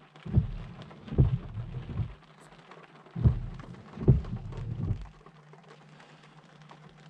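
Seat Ateca windscreen wipers with SWF blades sweeping a rain-wet windscreen on a slow setting, heard from inside the cabin: two wipe cycles about three seconds apart, each with a motor hum and two dull thuds as the arms reverse and return. A faint steady low hum follows.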